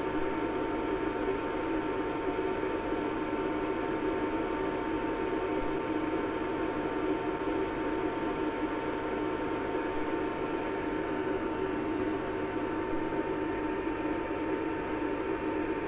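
Cooling fan of a multi-line argon-ion laser running: a steady rush with a constant high whine over it.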